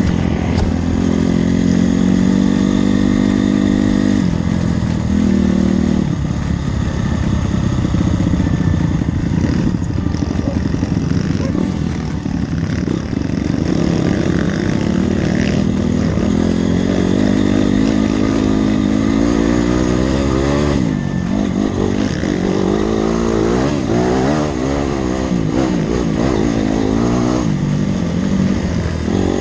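Dirt bike engine running hard, its revs rising and falling again and again as the throttle is worked, with quicker swings in pitch in the second half.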